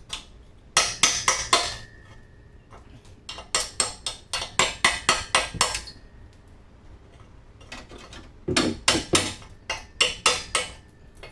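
Flat chisel striking and chipping a rusted exhaust donut gasket off the pipe flange: three bouts of sharp metal-on-metal strikes, a few a second.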